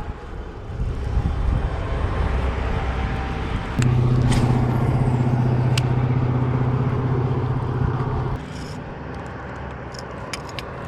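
Road traffic on a nearby bridge: a vehicle's engine drone builds up, holds a steady low hum for about four seconds, then stops suddenly, leaving a quieter traffic rumble.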